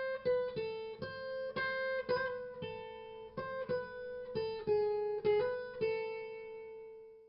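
Acoustic guitar playing a melody of single plucked notes, about two a second, ending on a held note that rings on and fades out.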